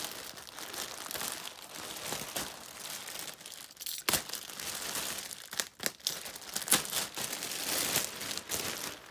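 Clear plastic garment bag crinkling and rustling as hands pull it open and slit it with a utility knife, with a few sharp crackles in the middle.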